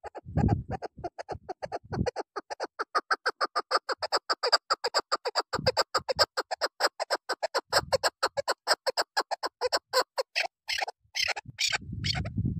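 Chukar partridge giving its rallying call: a long, fast run of clucking 'chuk' notes, several a second, that builds in pitch and loudness, then breaks into a few harsher calls near the end. A low rumble sounds at the start and again near the end.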